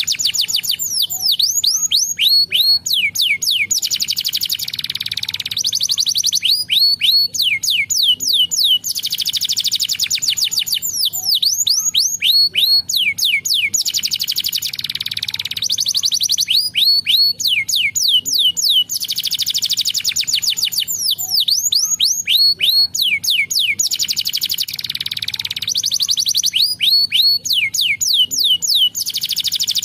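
Domestic canary singing: runs of quick falling whistled sweeps alternating with rapid buzzy trill rolls, the phrases repeating every few seconds.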